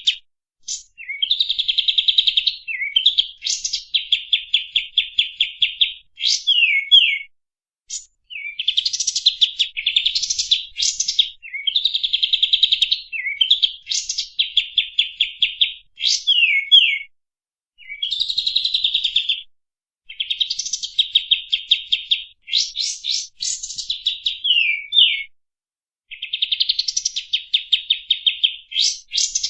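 Kapas tembak songbird singing long chattering phrases: fast runs of sharp repeated notes, about ten a second, each phrase a few seconds long with short gaps between, and a few quick falling whistles.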